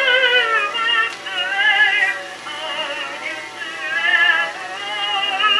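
A 1913 record of a woman singing, played on a late-1950s Admiral 329 record player through its vacuum-tube amplifier. The sound is a thin, wavering sung melody, with nothing in the low end. The turntable speed is unsteady because the drive motor, its rubber bushings missing, is not gripping the platter well.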